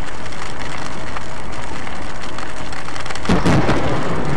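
Steady heavy rain noise heard from inside a car, then a sudden loud thunderclap about three seconds in, crackling and rumbling.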